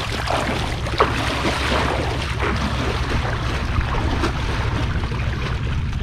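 Water splashing and sloshing around a person floating in a river in a buoyancy vest, with wind rumbling on the microphone and a single sharp click about a second in.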